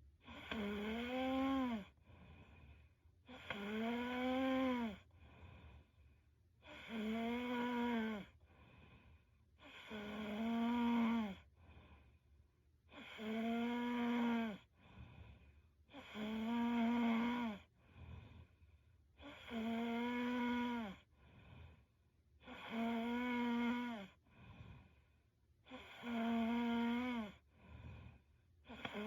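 A young woman snoring in her sleep: about ten regular, pitched snores, one roughly every three seconds, each rising and falling slightly in pitch, with faint breaths between.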